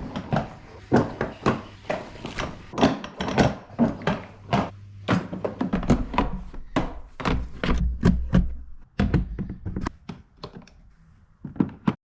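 A rapid, irregular string of knocks and thunks from the hard plastic parts of a children's ride-on toy car being unpacked, handled and fitted together during assembly.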